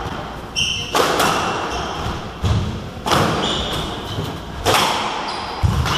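Squash rally: the ball cracks off rackets and walls about every second to second and a half, each hit echoing around the court, two of them heavy low thuds. Short high squeaks of court shoes on the wooden floor come between the hits.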